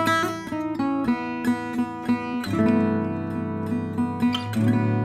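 Selmer-Maccaferri-style gypsy jazz acoustic guitar played: ringing chords with short repeated plucked notes over them. The chord changes about halfway through and again near the end.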